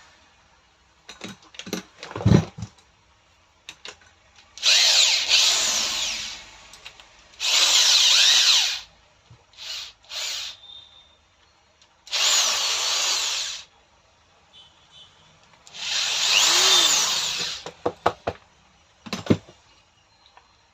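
Electric drill-type power tool motor switched on in five runs of one to two seconds, each spinning up and winding down, with two quick blips between them. Sharp knocks of the tool being handled come just before the first run and just after the last.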